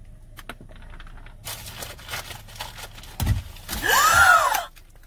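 Ostrich's beak pecking at food held in a hand at a car window: a run of light taps and clicks. About three seconds in comes a heavy thump, then a loud short cry that rises and falls in pitch.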